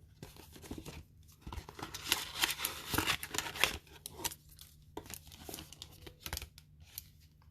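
Foil booster-pack wrappers and paper envelopes rustling and crinkling as packs are handled and slipped into envelopes, in irregular bursts with short pauses.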